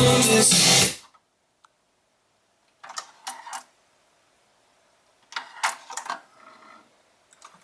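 Music from a Nakamichi RX-303 cassette deck stops about a second in. Its tape transport mechanism then clicks and whirs in two short bursts of mechanical clatter, and the music starts again just after.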